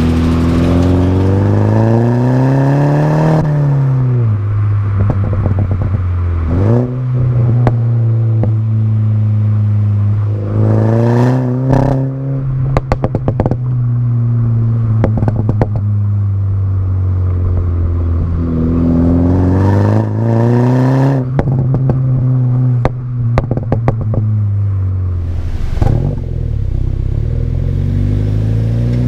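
Mini Cooper S F56's turbocharged four-cylinder engine through an exhaust with its rear muffler deleted. The engine climbs in pitch three times and drops back, holding a steady note for long stretches in between. It pops and crackles each time the throttle closes.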